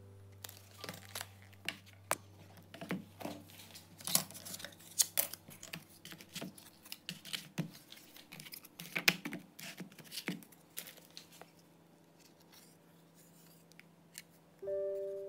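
Irregular rustling, scraping, tearing and clicking of hands working with airframe parts on a bench. The sounds come close together for about ten seconds, then die away.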